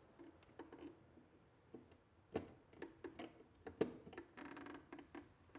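Faint scattered clicks and taps of stiff 10-gauge wires and a Wago lever connector being handled at a metal electrical box, with two sharper clicks about two and a half and four seconds in and a short rustle just after the second.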